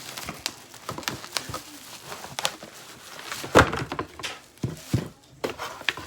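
Irregular clicks, knocks and rustles of a cardboard box and its packaging being handled and opened, with one louder knock about three and a half seconds in.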